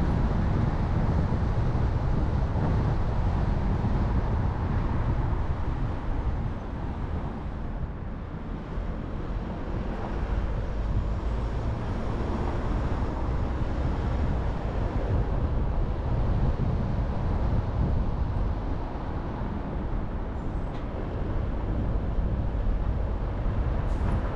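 Car driving along a road: a steady low rumble of tyre and engine noise, easing a little in level for a few seconds about a third of the way in.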